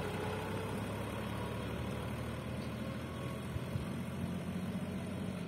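Tractor engine running with a steady low hum.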